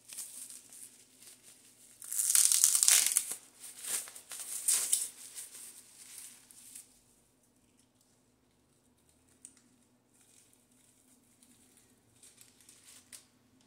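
Small plastic bags crinkling as they are handled and opened, loudest in two spells from about two seconds in, then dying away to a few faint rustles.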